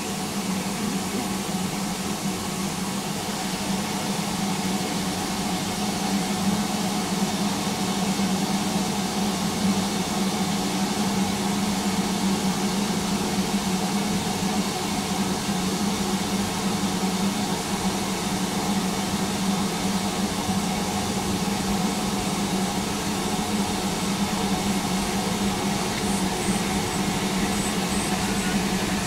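Steam locomotive No. 850, a Southern Railway Lord Nelson class 4-6-0, approaching at the head of a train of coaches. Its sound slowly grows louder over a steady low hum.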